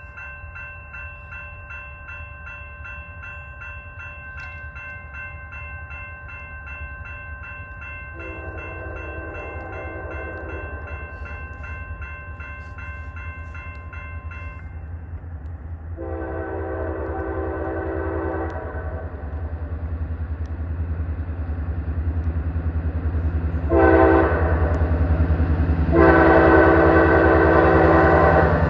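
Diesel freight locomotive horn sounding the grade-crossing signal: two long blasts, a short one and a long one, each louder as the train approaches, over a low engine rumble that keeps building. Through the first half a crossing-signal bell rings steadily, about two strokes a second.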